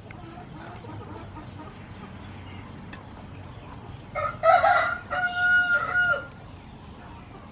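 A rooster crows once, about four seconds in: a rough start, then a held, evenly pitched note lasting under two seconds.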